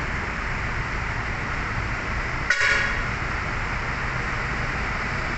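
A Hino diesel coach running steadily as it pulls forward, with one short horn toot about halfway through.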